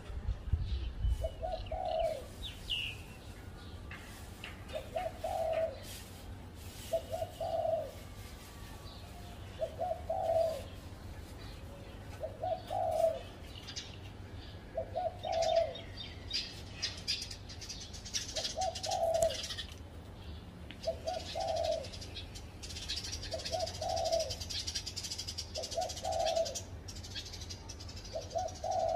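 Spotted dove cooing: a short, low coo phrase repeated about every two and a half seconds. Other small birds chirp faintly in the background through the second half.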